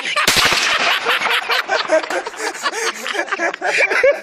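Several men laughing and chuckling over one another, with a short sharp knock about a third of a second in.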